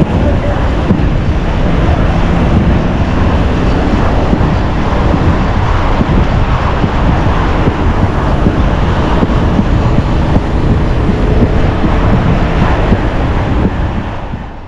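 Heavy wind buffeting the microphone over street traffic noise, as from a moving rider's camera; it fades out at the very end.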